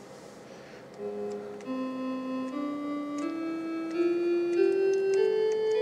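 Church organ voice from a Crystal FM synthesis sound card, starting about a second in and playing a slow rising scale of held notes that overlap one another. Faint clicks from the computer keys being pressed to play the notes come through among them.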